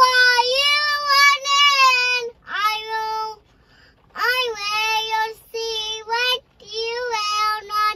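A young girl singing in a high voice, holding long drawn-out notes in several phrases with short pauses between them.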